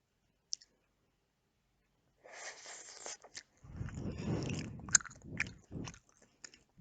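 Close-miked eating of Nando's chicken: a single click about half a second in, then biting and chewing from about two seconds in, with several sharp wet mouth clicks in the second half.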